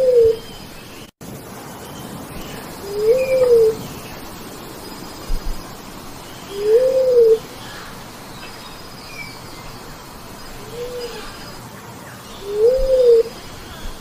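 Bleeding-heart dove calling: a single low coo that rises and falls in pitch, repeated about every three seconds, five times.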